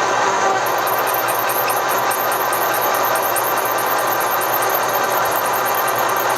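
Machine spindle running steadily at high speed as a 9/16-inch drill bit cuts a spark-plug hole into a Sportster cylinder head. A fast, even, high-pitched pulsing sits over the steady machine sound from about half a second in.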